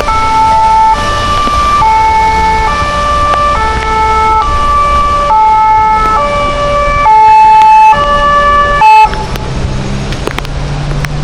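Emergency vehicle's two-tone siren passing close by, alternating between a high and a low note about every half second and very loud. It cuts off about nine seconds in, leaving a low vehicle engine rumble.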